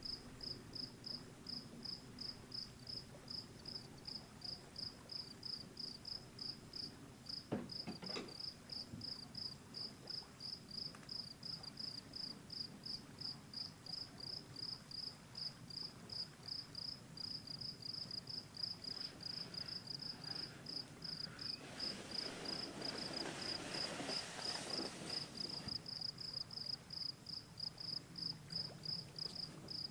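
Crickets chirping in a steady, even rhythm of about three high chirps a second, at dusk.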